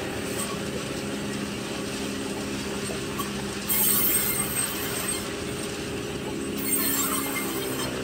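Small sawmill machine running with a steady motor hum, growing louder for a moment about four seconds in and again near the end.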